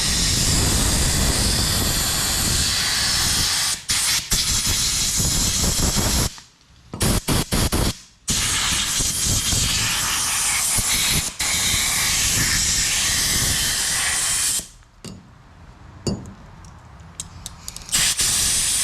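Compressed-air blow gun blasting dust out of a chainsaw in loud hissing blasts. Two long blasts of about six seconds each are separated by a few short puffs, then come a few quick taps and a last short blast near the end.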